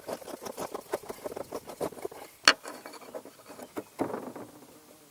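Rapid, irregular clicking and scraping of a screw being undone from a plastic license plate holder, with one sharp click about two and a half seconds in.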